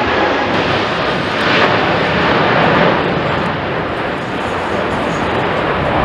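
Jet engines of a Japan Airlines Boeing 787-8 Dreamliner climbing away overhead at high thrust during a go-around, a loud, steady rushing noise.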